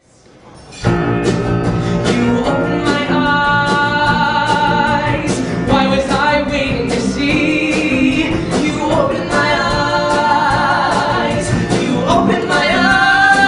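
After a short silence, a live band starts up about a second in, with drums and electric guitar, and male voices sing over it.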